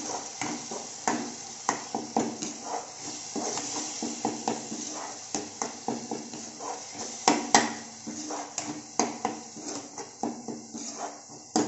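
Spatula stirring and scraping a thick onion-tomato masala paste frying in oil in a non-stick kadai: irregular taps and scrapes against the pan over a light sizzle as the paste cooks down.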